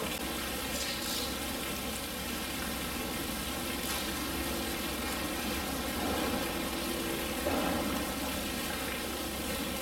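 Steady background noise: an even hiss with a low hum underneath and no distinct events.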